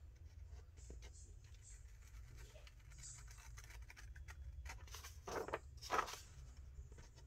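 Faint rustling and small clicks of paper being handled on a craft table, over a steady low room hum, with two louder brief scrapes about five and six seconds in.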